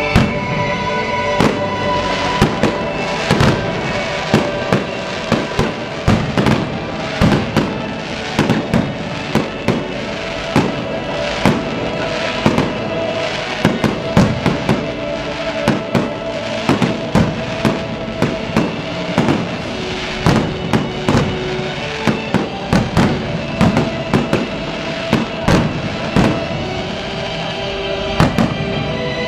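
Aerial fireworks bursting in a rapid, continuous series of bangs, several a second, over music with long held notes.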